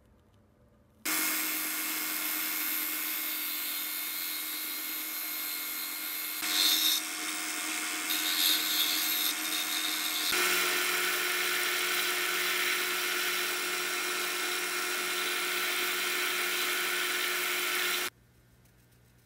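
Disc sander running with a spalted-wood lure blank pressed against it, the sanding growing louder in short spells, then a belt sander grinding the blank. The sound starts abruptly about a second in, changes character about ten seconds in, and cuts off shortly before the end.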